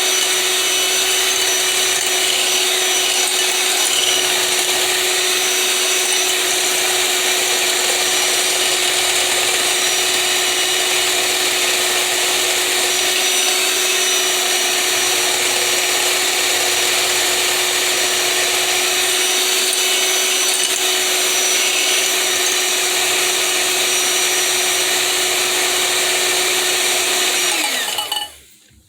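Electric blender motor running steadily, blending an egg-and-oil mayonnaise mixture with steeped herbs. Near the end it is switched off and the motor winds down, its pitch falling before it stops.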